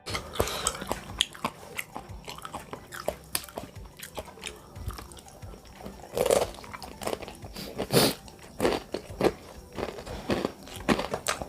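Close-miked eating sounds of bakso (meatball soup) being eaten: irregular biting, chewing and crunching, with a few louder bites about six and eight seconds in.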